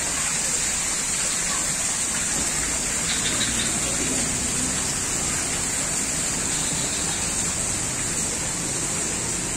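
Steady rush of running water, even and unbroken, with a constant high hiss over it.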